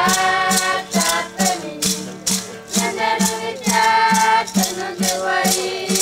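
Group of Guarani voices singing a chant together to a strummed acoustic guitar, over a steady beat of about two strokes a second.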